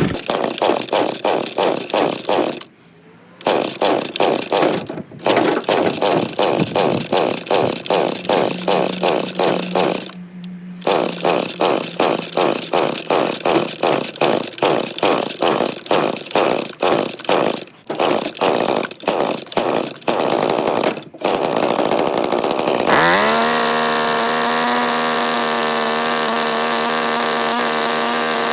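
Echo SRM-225 string trimmer's small two-stroke engine being started after a tune-up: for about twenty seconds it fires in rapid uneven pops with a few short breaks, then about 23 seconds in it catches, its pitch climbs, and it settles into a steady run.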